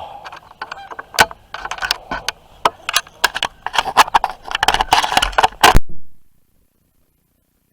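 Microphone being handled: loud, irregular rustling, scraping and knocking right on the mic for about six seconds, then the sound cuts out completely to dead silence.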